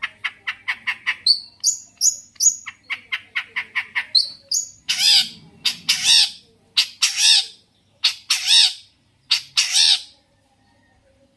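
Long-tailed shrike (cendet) singing: a fast run of short, sharp chattering notes with a few higher whistled notes, then about six louder, longer, coarse calls, the song stopping about ten seconds in.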